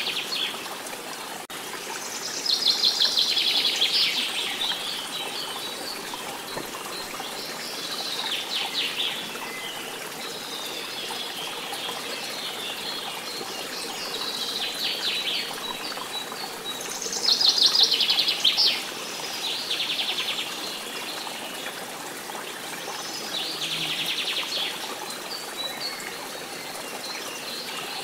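Nature ambience of a flowing stream with birds singing over it: quick trilled phrases come every few seconds over the steady rush of water, the loudest about three seconds in and again near the middle.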